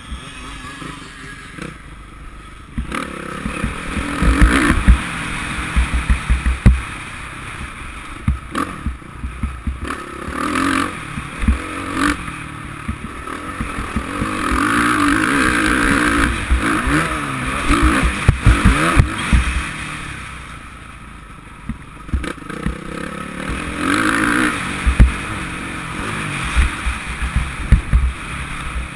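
Suzuki RM-Z450 four-stroke single-cylinder motocross engine revving up and dropping off again and again as it is ridden hard over a rough dirt track. Heavy wind buffeting and knocks from the bumps sound on the helmet-mounted camera's microphone.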